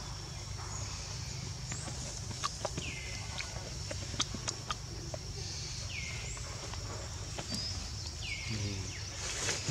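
A bird's short falling call, repeated about every three seconds, over a steady high-pitched drone and a few faint clicks.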